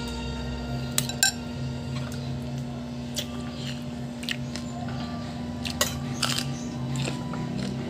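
Light clinks and taps from a plate and dishes as fingers work rice and food on the plate, a handful of short sharp ticks scattered through, over a steady low hum.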